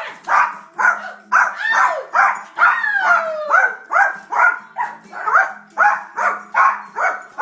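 Miniature Yorkshire terrier barking rapidly and without a break, about two to three sharp yappy barks a second, with one long falling whine about three seconds in.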